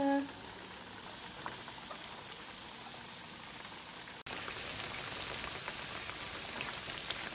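Breaded pork cutlets deep-frying in a wide pan of hot oil: a steady sizzle with fine crackles, growing louder about four seconds in.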